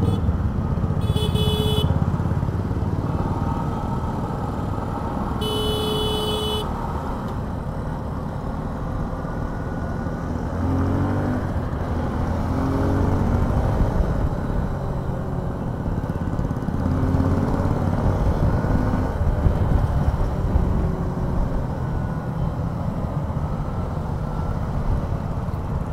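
Motorcycle engines running at road speed in traffic, with wind and road noise. A vehicle horn toots briefly about a second in and again about six seconds in. Through the middle the engine pitch rises several times as the bikes accelerate.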